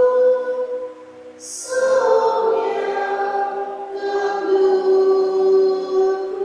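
Church choir singing a hymn in long held notes, with a short break about a second in before the next phrase begins.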